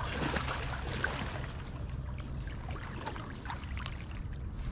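Water splashing and sloshing as a hooked carp thrashes at the surface and is scooped into a landing net in shallow water.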